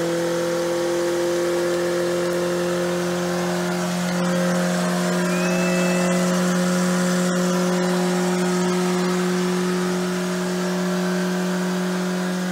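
2JZ-swapped Toyota Hilux mini truck's engine held at high, steady revs during a burnout, its pitch creeping slowly upward, with the rear tyre spinning on concrete.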